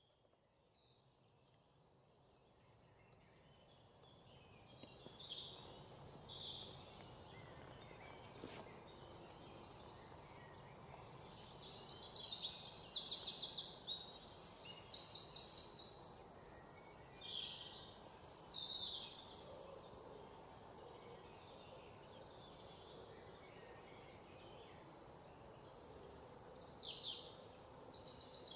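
Birds chirping and calling, with several fast rattling trills, over a steady outdoor background hiss. It grows louder over the first few seconds.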